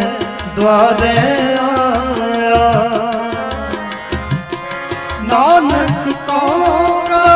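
Sikh shabad kirtan music: tabla keeps a steady beat under held melodic tones and a melody that slides in pitch.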